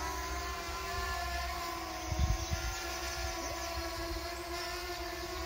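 Holy Stone HS510 quadcopter drone flying overhead: a steady whine from its spinning rotors, with a brief low rumble about two seconds in.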